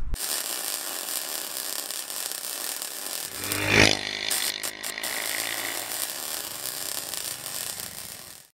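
A power tool's small engine running steadily, revving up briefly about four seconds in, then cutting off abruptly near the end.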